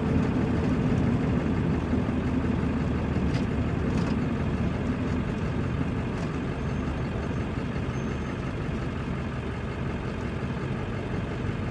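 Steady road noise and engine hum from inside a moving vehicle.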